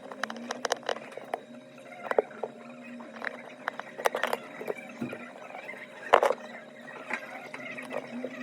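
Small, irregular clicks and taps of hand tools against iPhone 6S Plus parts during the front-camera replacement, the sharpest about four and six seconds in, over a faint low steady hum.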